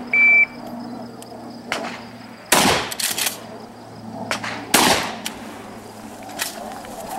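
An electronic shot timer gives one short high beep, and about two seconds later a .45 ACP pistol fires a string of shots at a quick, uneven pace: a close cluster of loud reports, another loud one about two seconds after, and fainter shots between and near the end.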